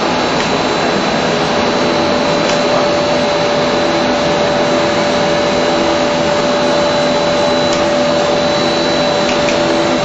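Plastic film blowing and gravure printing machine line running: a loud, steady machine whir and hiss with a constant whine held at one pitch.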